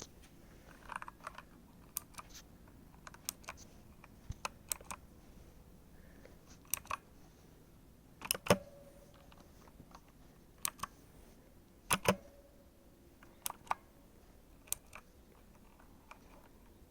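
Clicky keyboard keys pressed one at a time or in quick pairs, with pauses between, rather than steady typing. Two louder presses, about halfway and two-thirds of the way in, each leave a brief ringing tone.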